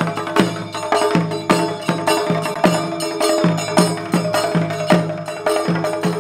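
Background music with a steady percussion beat, a little under three strikes a second, over held tones.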